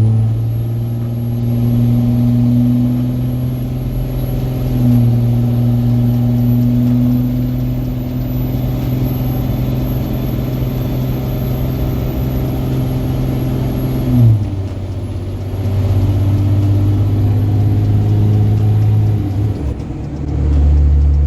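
Diesel pickup truck engine running steadily while driving, a continuous drone. Its pitch drops suddenly about 14 seconds in, and the sound dips and comes back deeper near the end.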